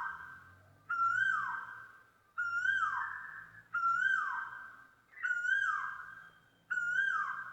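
Asian koel calling: a clear whistled note repeated about every one and a half seconds, each one rising slightly and then sliding down in pitch.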